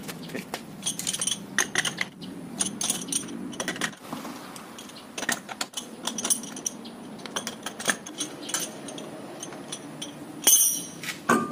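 Metal clicks and clinks of a socket and bar undoing the wheel nuts on a steel wheel, the loosened nuts rattling and chinking as they come off, with a louder metallic clunk about ten and a half seconds in.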